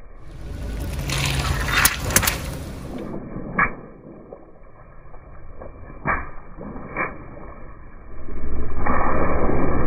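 Car tyre rolling over water-filled balloons and water beads on asphalt: a quick run of sharp snaps about two seconds in, then single snaps as more balloons give way, with splashing. Near the end a louder, steady rush of spraying water and scattering beads takes over.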